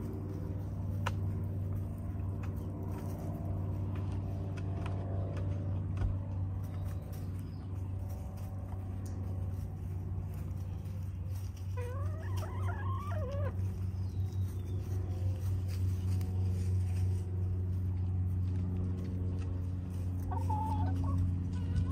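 Hens pecking and scratching in straw, with faint scattered clicks. A hen gives a wavering call about twelve seconds in and a short one near the end, over a steady low hum.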